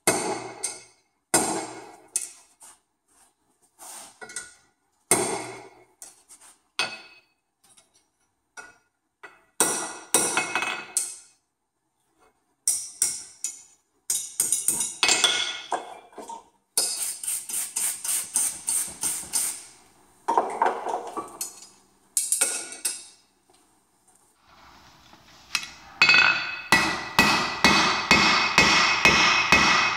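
Hand hammer striking red-hot mild steel rod on a steel anvil, each blow ringing. The blows come in short runs that break off suddenly, ending in a fast steady run of about three blows a second.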